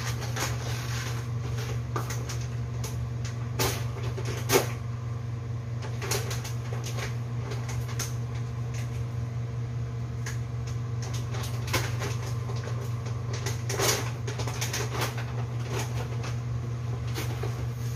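Kitchen clatter from items being handled at the worktop: scattered clicks and knocks, the sharpest about four and a half seconds in, over a steady low hum.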